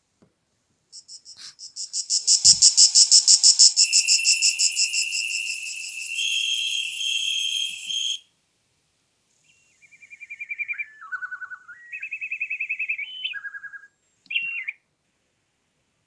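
Built-in ringtones of a Sagem my401C mobile phone previewed through its small speaker, one after another. First comes a fast, pulsing electronic trill with a held beeping tone, which stops about eight seconds in. After a short gap comes a melody of stepped electronic tones that falls and then rises again.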